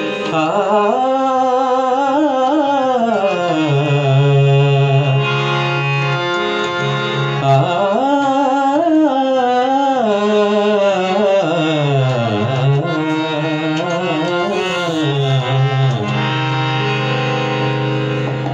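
Male voice singing a ghazal in long, winding melodic phrases, accompanied by a harmonium's steady held notes and tabla.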